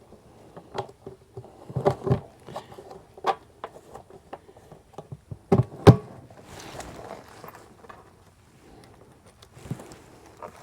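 Scattered knocks and clinks of bolts, lock washers and wing nuts being handled and fitted while deer-feeder parts are bolted together. The loudest knock comes about six seconds in.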